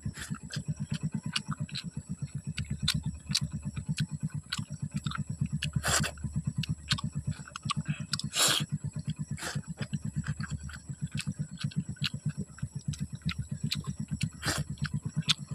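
Motorcycle engine left idling, a fast, even low chugging throughout, with scattered sharp clicks and smacks of someone eating by hand from a leaf plate, the louder ones about 6, 8 and 14 seconds in. A steady high-pitched whine sits above.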